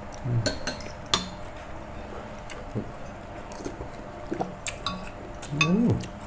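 Metal spoons clinking against ceramic soup bowls and plates while people eat soup, in scattered sharp taps, with a short voice sound near the end.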